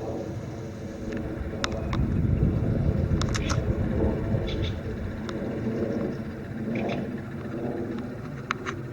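Birds giving short, scattered chirps over a loud, continuous low rumbling drone.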